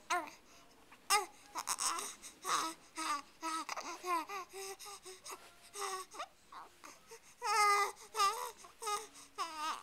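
Young baby babbling and cooing: a string of short high-pitched vocal sounds, with a louder run near the end.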